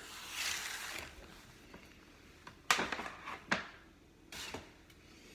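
Bottles being handled and set down on a counter: a brief rustle, then a few knocks.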